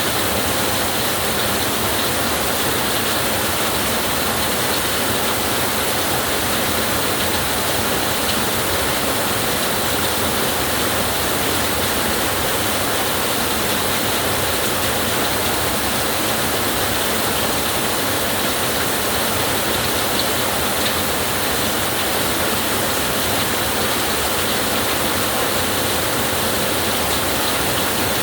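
Steady heavy rainfall, an even unbroken hiss with no thunder or changes in level.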